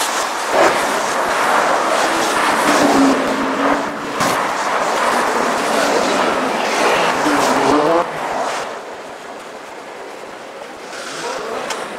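Road traffic: city buses and cars driving past close by, with engine tones that dip and rise as they pass. Loud for about eight seconds, then the traffic noise drops to a quieter hum.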